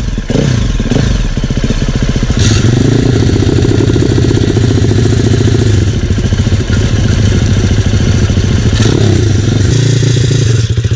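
MRF 140 pit bike's four-stroke single-cylinder engine running loudly just after starting, blipped briefly at first, then held steady at higher revs from about two seconds in.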